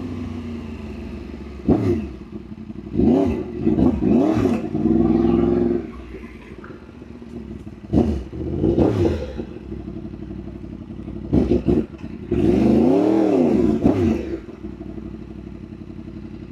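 Yamaha R1's inline-four engine idling and being revved over and over, each rev rising and falling in pitch. Most are quick blips, and two are held for a second or more.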